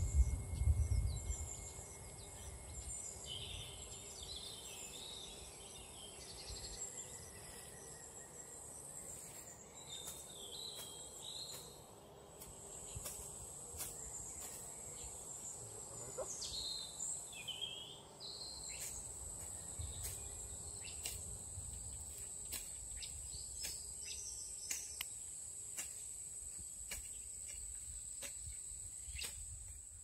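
Countryside ambience: insects droning steadily at a high pitch, with birds chirping over them. Wind rumbles on the microphone for the first second and again for a few seconds past the middle. Scattered short clicks run through the second half.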